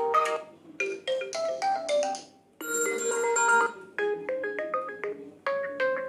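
Built-in Oppo A53 ringtones previewed one after another: short melodic chime tunes, each cut off abruptly as the next one starts, about four times.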